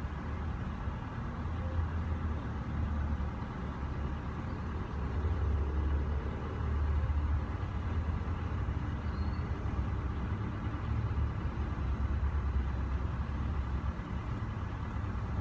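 Low, uneven rumble of wind buffeting the microphone outdoors, swelling and easing, with faint short chirps about halfway through.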